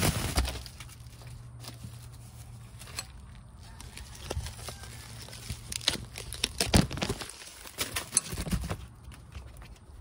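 Bubble wrap crinkling and crackling in irregular bursts as it is pulled off a boxed tool by hand, loudest in a cluster of crackles in the second half, over a faint steady low hum.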